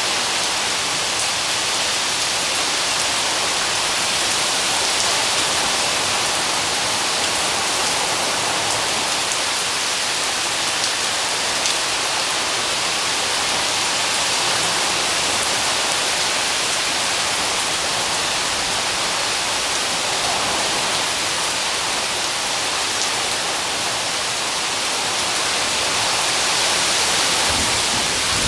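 Heavy rain falling steadily in a thunderstorm: a dense, even hiss with a few sharper drops ticking through it.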